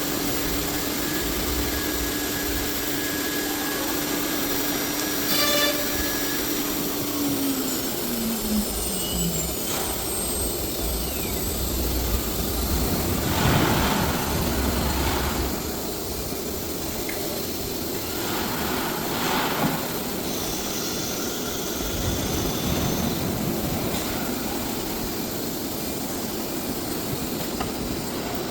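A 1325 ATC CNC router running with steady machine noise. A steady tone falls in pitch about eight seconds in, and there are two short hissing bursts about halfway through.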